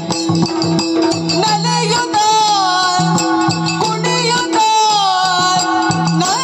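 Yakshagana bhagavatike: a woman sings a high, ornamented melodic line with vibrato over a steady drone, with stick-drum strokes from the accompanying chande.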